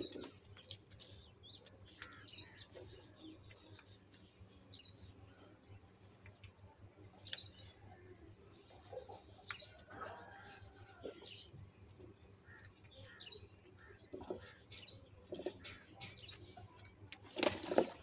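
A flock of house crows feeding from bowls: small clicks and taps from pecking, with scattered short bird calls. Near the end comes a loud burst of wing flapping as crows take off.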